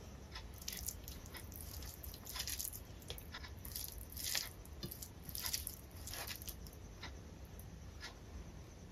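Quiet, sticky squishing of cooked rice and mashed potato being mixed by hand on a steel plate, in short irregular strokes.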